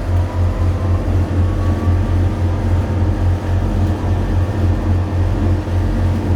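Loud, low, pulsing drone inside an S7 stock District line Underground train running between stations. A faint rising whine sounds in the first couple of seconds. The cause of the drone is unknown, and it is doubted to be normal for this stock.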